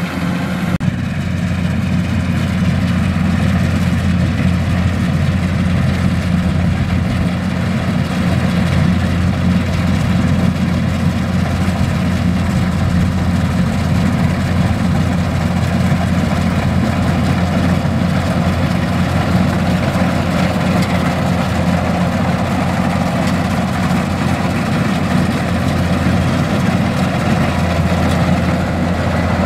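Kubota combine harvester's diesel engine and machinery running steadily while cutting rice, a loud, even drone that steps up slightly about a second in.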